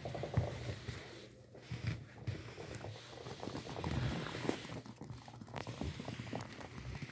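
Puppies scampering and playing on a laminate floor: a quick, irregular patter of claws and paws, with scuffles and knocks.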